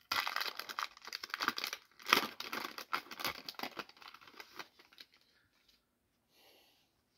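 Foil wrapper of a Donruss football trading-card pack being torn open by hand and crinkling, with a sharper rip about two seconds in. It stops about five seconds in.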